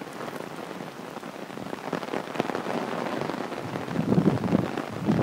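Heavy rain falling, dense with sharp ticks of drops landing close by, growing louder near the end.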